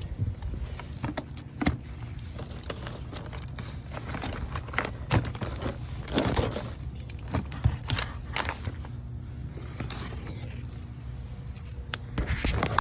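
Plastic bags crinkling and cardboard and boxed goods scraping and knocking as hands rummage through trash in a dumpster, in irregular bursts over a steady low hum.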